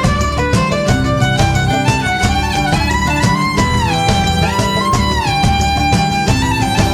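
Instrumental background music: a violin-like melody over a steady beat, with two downward pitch slides about halfway through.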